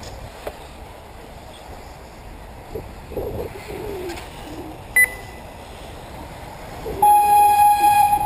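Electronic beeps from the race's lap-timing system: one short, high beep about five seconds in, then a long, loud, steady lower tone starting near the end.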